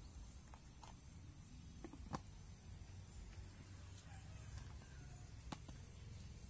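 Quiet outdoor ambience: a steady high-pitched insect drone over a low rumble, with a few faint light clicks, the clearest about two seconds in and about five and a half seconds in.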